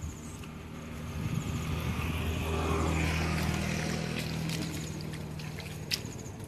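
A small engine hums steadily, growing louder to a peak about three seconds in and then fading away. A sharp click near the end, over light sloshing of hands in shallow water.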